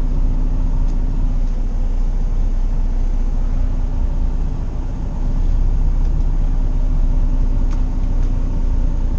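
Semi truck's diesel engine running steadily at low speed, heard from inside the cab, a little louder after about five seconds.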